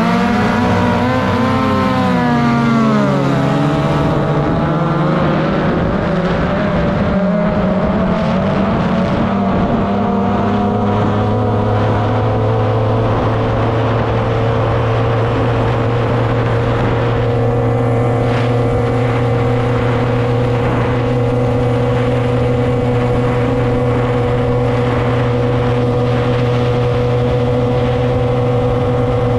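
Two-cylinder 30 hp outboard engine of a racing tunnel boat, heard from the cockpit. For the first few seconds the revs rise and fall unevenly, then the engine speed climbs gradually and settles into a steady note.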